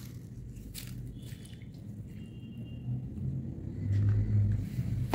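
A low steady rumble that swells about four seconds in, with a few faint rustles of torn paper scraps being handled and dropped into a tub of water.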